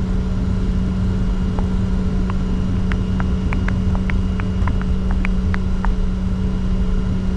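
Steady cockpit drone of a Bombardier Challenger 604 taxiing: a low rumble with a constant hum. A scatter of faint ticks comes through in the middle.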